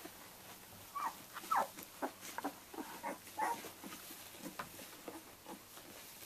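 Twelve-day-old Samoyed puppies whimpering and squeaking: a string of short, high, falling cries starting about a second in, with soft rustling as they crawl on the bedding.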